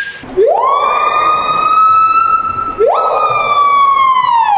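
An animal's long siren-like call, given twice: each one sweeps up quickly and then holds a steady, slightly breathy tone for about two and a half seconds before easing down.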